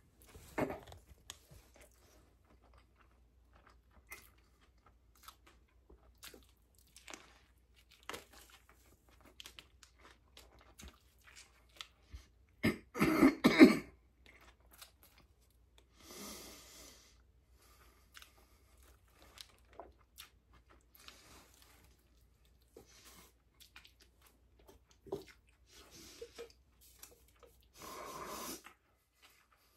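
A person chewing a sandwich close to the microphone, with small wet clicks and light crunching throughout. About halfway through comes a sudden loud cough, the loudest sound, with a few softer noises later on.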